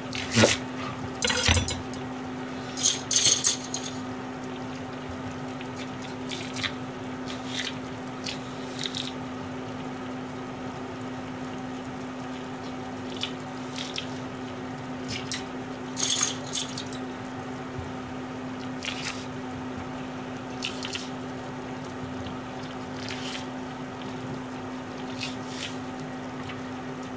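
A kitchen knife cutting negi (Japanese long onion) on a plastic cutting board in a few short clusters of sharp taps, loudest about three seconds in and again about sixteen seconds in, with the chunks being moved about on the board. Under it a steady low hum and the soft bubbling of onions simmering in a pan of broth.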